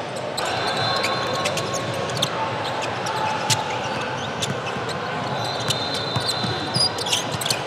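Basketball dribbled on a hardwood gym floor, sharp bounces scattered through, with sneaker squeaks and steady background gym noise.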